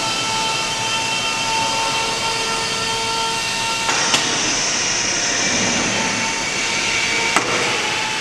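Makino A88 electrospindle running at high speed: a steady high whine over a rushing hiss. The pitch of the whine changes abruptly with a sharp click about four seconds in and again near the end.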